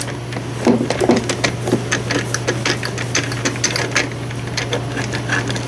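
Screwdriver backing screws out of a battery chainsaw's plastic housing: a quick irregular run of small clicks, ticks and scrapes of steel on screw and plastic. A steady low hum sits underneath.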